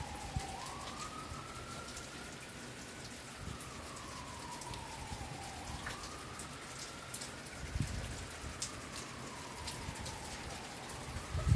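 A siren wailing, its pitch rising and falling slowly about every five seconds, over a steady hiss of rain. There are a couple of low rumbles in the second half.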